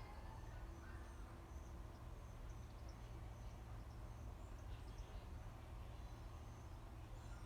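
Faint outdoor ambience: a steady low rumble with small, high, irregular chirps over it.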